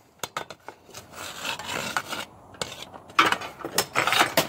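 Rough scraping and rubbing with sharp knocks, in two spells each about a second long, from things being handled or brushed against in the go-kart frame.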